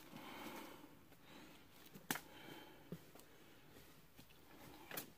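Near silence, with two faint short clicks about two and three seconds in.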